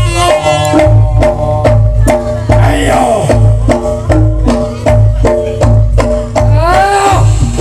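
Live Reog gamelan music: drum strokes keep a steady beat of about three or four a second under gong chimes that repeat a short pattern on a few notes. A reedy wind instrument sounds at the start and drops out within the first second.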